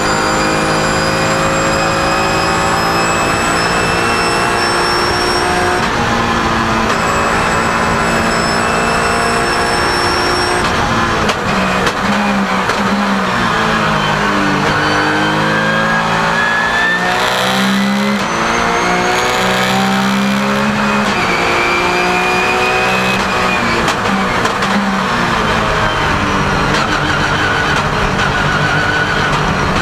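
Porsche 997 GT3 Cup race car's flat-six engine at racing speed, heard from inside the cockpit. The revs hold high and climb slowly, break for a shift about six seconds in, fall away through a corner about eleven seconds in, and then climb again in steps through the gears.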